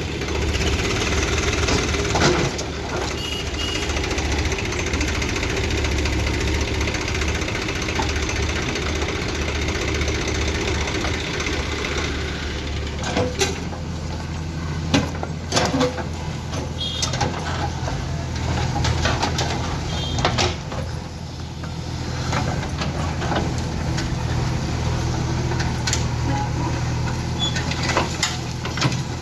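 JCB 3DX backhoe loader's diesel engine running steadily while it works, with several sharp clanks and knocks from the bucket and load scattered through.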